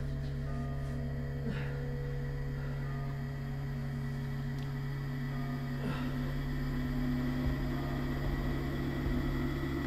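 A steady low hum with faint held higher tones over it, and a brief downward-sliding sound twice.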